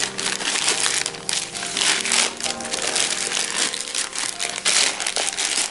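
Packaging being crinkled and crushed in the hands: a dense, continuous rustling crackle as the parcel wrapping is worked off the box.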